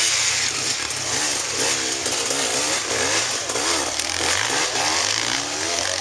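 Dirt bike engines revving up and down over and over, their pitch rising and falling, as the bikes climb over a rocky section of a motocross track.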